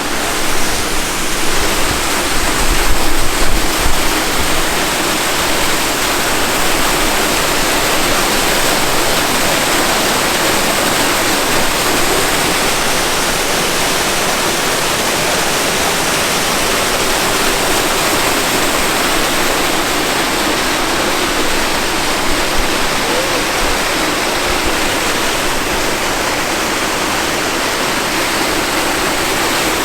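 Steady rush of a waterfall dropping some 60 to 80 feet into a pool below. There are a few low bumps in the first few seconds.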